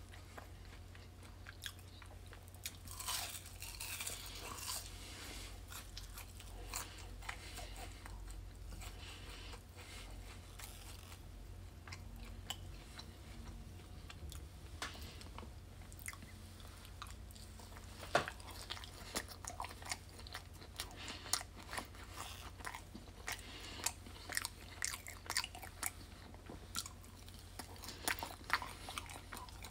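Close-up eating sounds: crisp fries and breaded chicken tenders being bitten and chewed, with many sharp crunches and wet mouth clicks, coming thicker in the second half, over a low steady hum.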